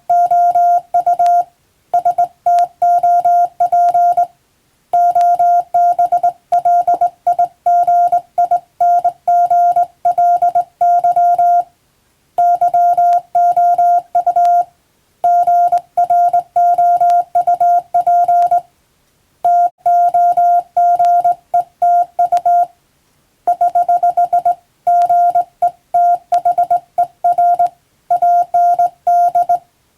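Morse code (CW) sent as a single steady beep tone keyed rapidly on and off in dots and dashes, at an operator's sending pace. It comes in runs of a few seconds broken by short pauses.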